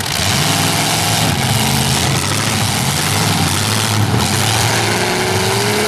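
Several demolition derby cars' V8 engines running and revving together in a loud, dense, steady din. One engine's pitch rises slowly near the end.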